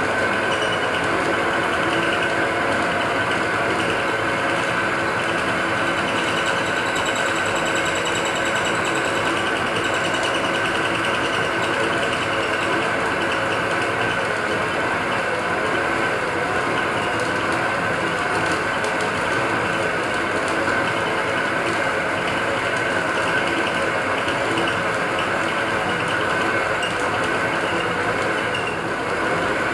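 Small metal lathe running steadily with its chuck spinning: a constant mechanical drone with a steady high tone.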